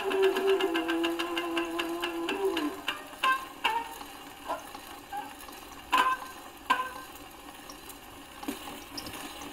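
Gramophone playing a 78 rpm shellac record: a held note with rapid plucked strokes ends about three seconds in. Then only the disc's surface hiss is left, with scattered clicks and pops from the needle as the record runs on past the end of the music.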